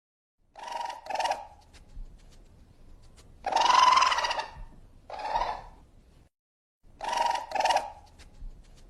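Raccoon calling: two quick hoarse squeals, a longer one and another shorter one, then the same pair of quick squeals again near the end.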